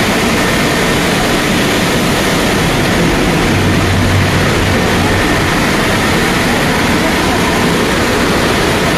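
Automatic rollover car-wash machine running: a loud, steady rushing noise with a low hum underneath.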